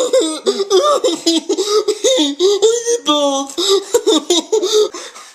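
A person laughing hard in a run of high-pitched, rapid giggles.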